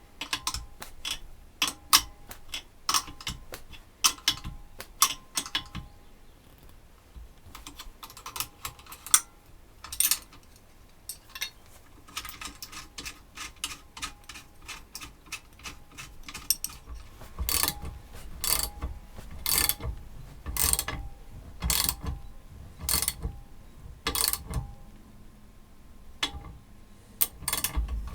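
Metal clicks and clinks of a hand rivnut tool being worked to set an M8 rivet nut in steel sheet. Scattered sharp ticks with a short ring at first, then from about two thirds of the way in a run of louder strokes about one a second.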